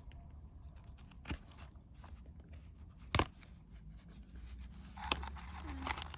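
A trading-card display box being opened and handled: scattered clicks and crinkles of cardboard and wrapper, with one sharp snap about three seconds in and denser rustling near the end.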